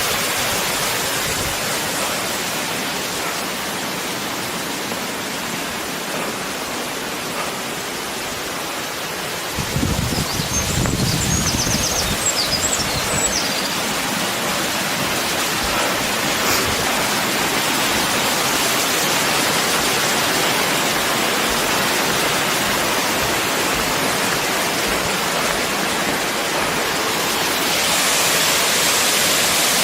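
Steady rushing roar of falling water from Ōdaru Falls. About ten seconds in, a brief low rumble rises over it for a couple of seconds, with a few faint high chirps.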